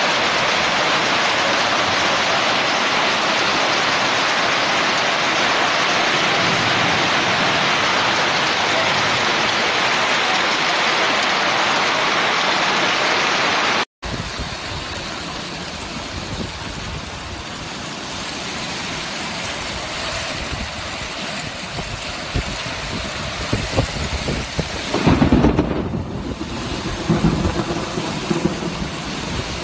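Heavy rain making a steady, even hiss. Partway through, it gives way to a gusty, wind-driven rainstorm with uneven surges and a louder low rumble near the end.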